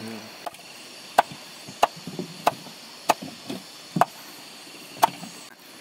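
A knife chopping fish on a wooden paddle blade used as a chopping board: about seven sharp chops at a fairly even pace, roughly one every two-thirds of a second.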